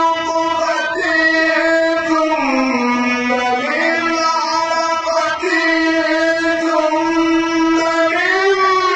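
A man reciting the Quran in a melodic chant, drawing out long held notes without a break; the pitch dips lower about two and a half seconds in and climbs back up.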